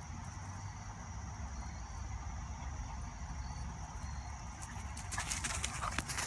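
Steady outdoor background of a thin, high insect drone over a low rumble. From about five seconds in, dry fallen leaves rustle and crunch.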